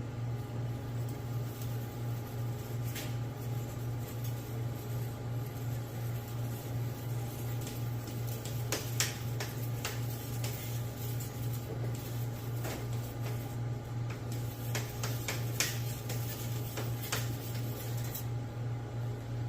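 Steady low hum throughout, with scattered sharp scrapes and clicks of a machete blade being worked by hand against a flat sharpening stone.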